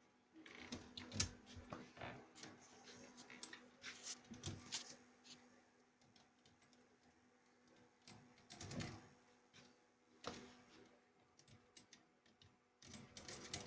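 Kittens' claws scratching and catching on a window screen mesh: faint, irregular clicks and scrapes in short clusters with quiet gaps between them.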